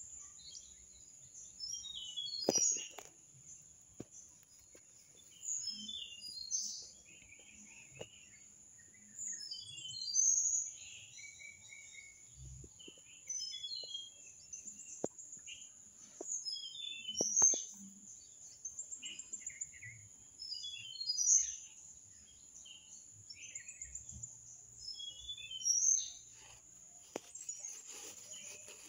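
Songbirds chirping outdoors, many short high calls in quick runs every few seconds, over a steady high-pitched whine. A few faint clicks come in between.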